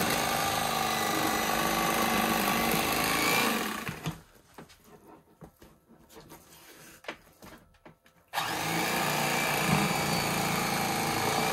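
Corded electric fillet knife's motor buzzing as its blades saw along a walleye's backbone to take off a fillet. It stops about four seconds in, leaving a few light clicks and handling noises, and starts again about eight seconds in.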